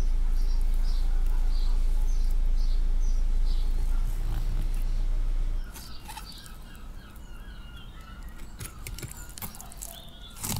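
A small bird chirping over and over, about two short chirps a second, above a steady low rumble. The rumble cuts off abruptly about halfway through, leaving faint clicks and scrapes.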